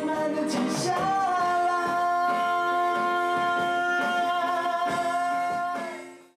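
Live band music with singing over instrumental backing. One note is held steadily for about five seconds, then the music fades out just before the end.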